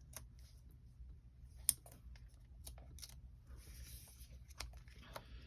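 Cardstock pieces being handled and pressed into place on a card: scattered light clicks and taps, one sharper click under two seconds in, and a soft paper rustle a little past the middle.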